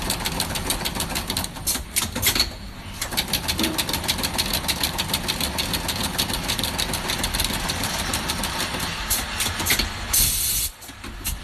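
Factory machinery of a cable production line running, with a rapid, even clicking over a steady mechanical noise.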